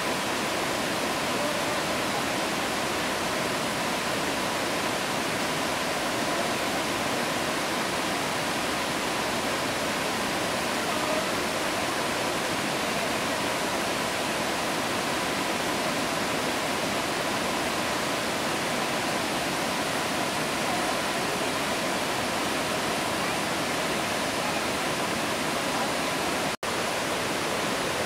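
Vazhachal Falls in monsoon flood: a steady, unbroken rush of heavy muddy water over rocks. The sound drops out for an instant near the end.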